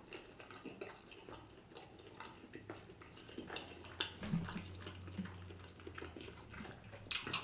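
Faint chewing with soft, irregular mouth clicks and smacks.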